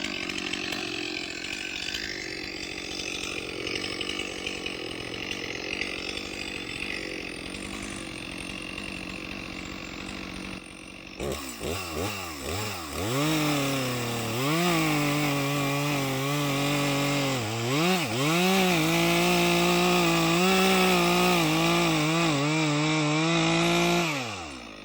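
Two-stroke chainsaw engine, first running in the background. About eleven seconds in it is revved up and down several times, then held at a high, steady full-throttle pitch with a couple of brief dips, and it drops off sharply near the end.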